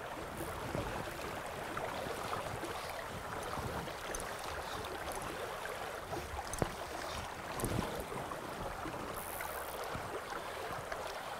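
Shallow river water rippling over stones in a steady rush, with a couple of faint clicks about midway through.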